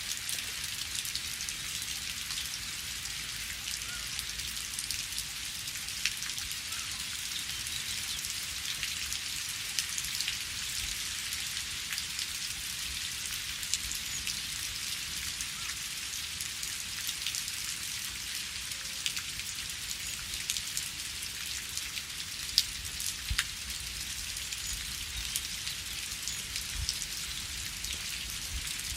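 Steady rain with a constant hiss and many individual drops pattering, a few louder drop hits now and then.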